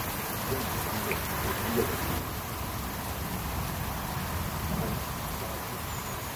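Heavy rain falling on a pond's surface, a steady hiss, with a few light knocks in the first two seconds.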